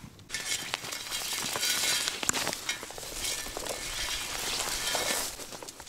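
Footsteps crunching and scuffing over dry ground, a rustling hiss that swells about once a second.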